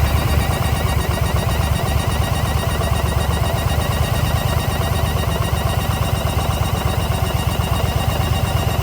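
Yamaha XV950 Bolt's air-cooled V-twin engine running steadily at idle, with the abnormal noise of an air leak at the intake manifold.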